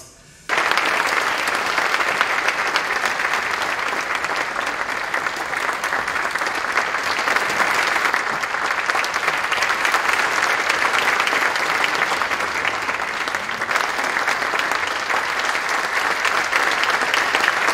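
Audience applauding. The clapping starts suddenly about half a second in and keeps up steadily, as a large crowd.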